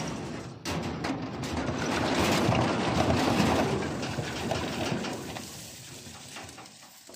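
Wire cage and wooden truck bed rattling and clattering as a troop of monkeys scrambles out of the opened trap. The clatter swells over the first few seconds, then fades away.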